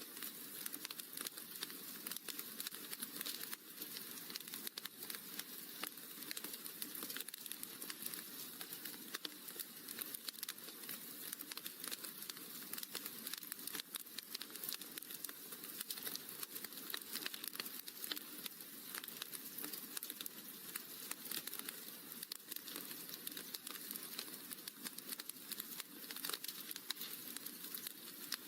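Wood fire crackling in a fireplace: a steady, dense run of small pops and snaps over a soft hiss.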